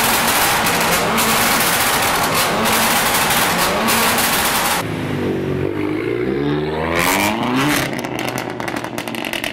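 Straight-piped, catless, non-resonated exhaust of a Mk7 Golf R's turbocharged four-cylinder, revved hard with a rapid, continuous crackle of exhaust pops and bangs. About five seconds in, the sound changes to a cleaner rev whose pitch falls, climbs and drops off, with scattered exhaust cracks near the end as the car pulls away.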